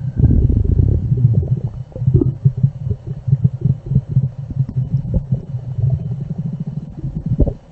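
Loud stomach rumbling: a continuous run of low, irregular gurgles and quick pops, with a sharper gurgle near the end.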